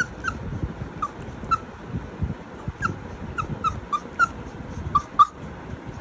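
Labrador puppy whining in short, high-pitched squeaks, about a dozen of them, the loudest near the end.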